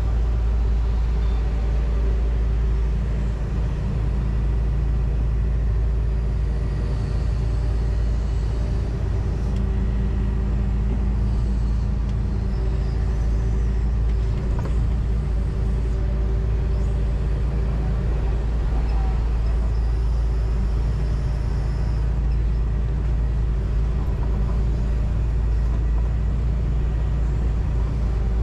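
John Deere 245G excavator's diesel engine running steadily with the hydraulics working, heard from inside the cab. Faint higher tones come and go over the steady low rumble.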